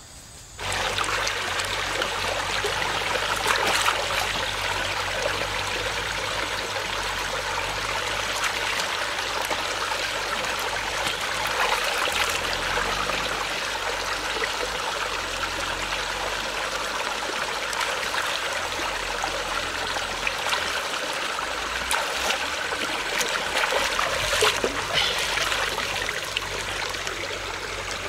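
Shallow rocky stream running steadily over stones, with a few brief splashes as a plucked duck is dipped and rinsed in the water.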